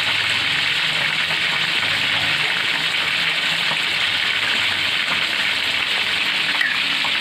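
Stir-fried jengkol in sweet soy sauce sizzling and bubbling in a wok as its last liquid cooks down, a steady hiss, with a few light scrapes of a metal spatula.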